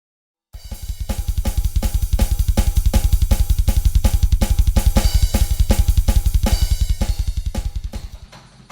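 Drum kit played with a double bass drum pedal: a rapid, even run of deep kick strokes under snare or tom hits about twice a second, with cymbals. It starts after a brief moment of silence and dies away near the end.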